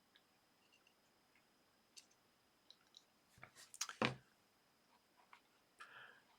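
A few light, scattered clicks and taps of small phone parts being handled, with a short cluster of louder clicks a little past the middle.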